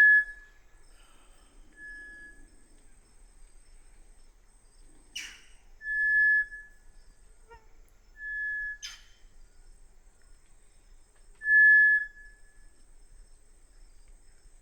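Inhambu-preto tinamou calling: five single, pure, steady-pitched whistles, each under a second long, spaced a few seconds apart; the first and last are the loudest. Two sharp clicks fall between the whistles.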